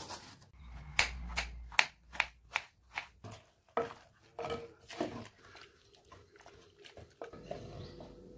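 Quick sharp scraping strokes, two or three a second, of bottle gourd being peeled and then the chopped pieces worked with a wooden masher in a clay pot; the strokes thin out after about five seconds.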